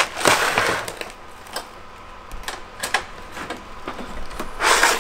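Handling noise as a hand-held dial hanging scale is hooked onto the steel frame of a model airplane and lifted: scattered clicks and light knocks, with a short rush of rustling just after the start and another near the end.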